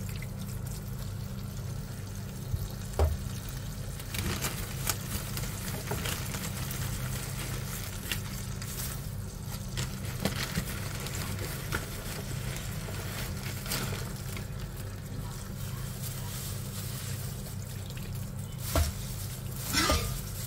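Water running and trickling over dried taro leaves in a stainless steel mesh strainer, with a crackly rustle of the leaves and a few louder rustles as a hand turns them, the loudest near the end. A steady low hum runs underneath.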